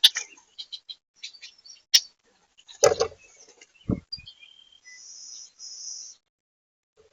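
Small birds at a feeder giving short, high chirps among scattered clicks, with a louder knock about three seconds in and a dull thump just after. Two short hissing buzzes come near the end.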